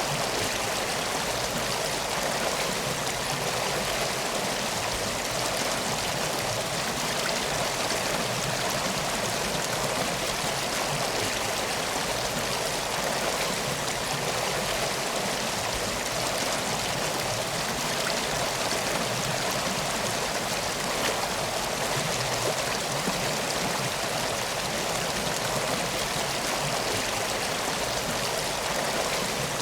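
Steady, even rushing of flowing water, like a river or stream, with no change in level throughout.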